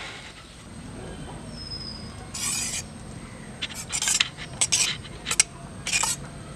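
A serving spoon scraping and clinking against a cooking pot as cooked rice is scooped out and dropped onto a banana leaf: a run of about six short, sharp scrapes starting a couple of seconds in.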